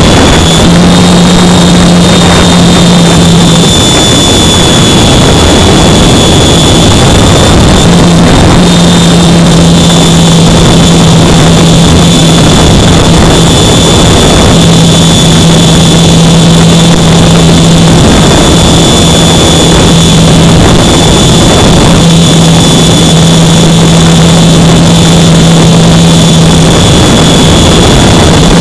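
Loud wind rushing over the microphone of a phone strapped to a flying RC glider, with a steady low hum and a thin high whine that hold through the flight; the hum drops out briefly a few times.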